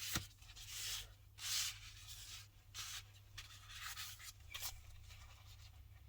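Hands handling freshly demolded epoxy resin coasters: soft, irregular rubbing and scraping sounds in short bursts, thinning out after about five seconds.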